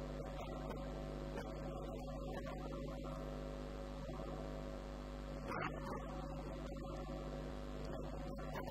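Steady electrical mains hum with a stack of overtones, and no speech; one brief click a little past halfway.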